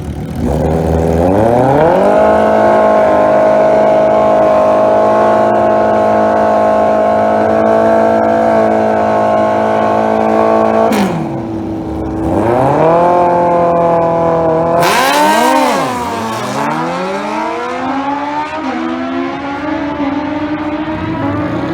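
Turbocharged Suzuki Hayabusa drag bike engine revving up and held at high, steady revs for about nine seconds, then dropping. It revs again, and after a sudden blast about fifteen seconds in, its pitch swoops and falls away as it runs off.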